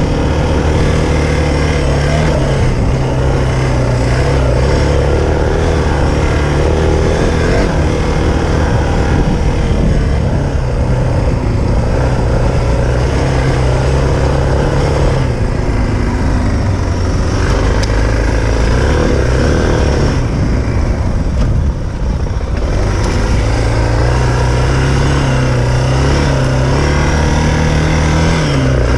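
Suzuki DR650's single-cylinder four-stroke engine pulling the bike along a dirt track. Its note rises and falls as the throttle is worked, easing off twice in the middle and climbing again near the end.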